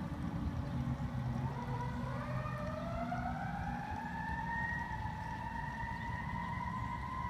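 Live steam locomotive whistle sounding: a single tone that rises in pitch over a few seconds as it opens, then holds steady. A low, rough running rumble from the locomotive continues beneath it.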